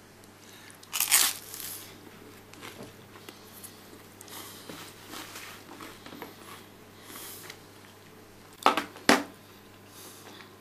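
Boiled eggshell being crushed and picked away at the top of the egg, a loud crackle about a second in followed by small crackles and scrapes. Two sharp clicks close together near the end.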